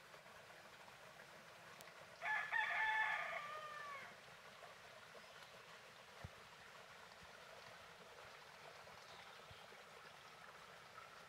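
A rooster crowing once, a single crow of about two seconds that starts a couple of seconds in and trails off in falling notes, over faint, steady outdoor background sound.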